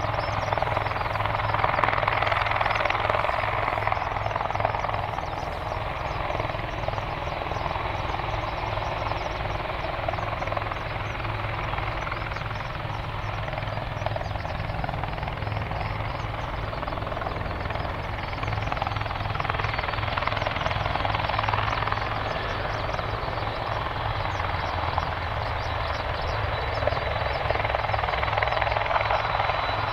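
Boeing 767-300 jet engines running at taxi power: a steady rushing drone with a low rumble beneath, and a faint high whine coming in near the end.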